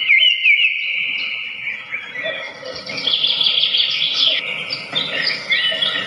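Several wild birds singing and chirping at once, a dense chorus of overlapping quick, looping whistled notes at a high pitch.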